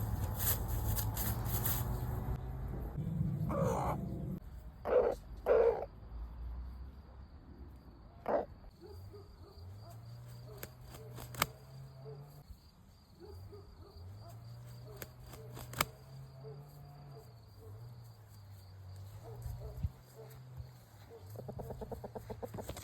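Chickens calling: a short call about four seconds in, two loud short squawks about a second later and a third near eight seconds. Then a quieter stretch with a low wavering hum, a few sharp clicks and a quick pulsing sound near the end.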